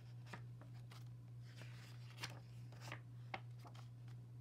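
A picture book's paper page being turned and smoothed flat by hand: a few soft rustles and light taps at irregular moments, over a steady low hum.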